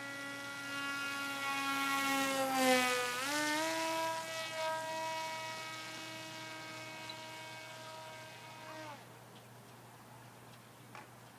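RC model airplane's motor and propeller buzzing overhead with a high, steady whine. It dips in pitch at its loudest, about three seconds in, then holds a higher note and stops about nine seconds in.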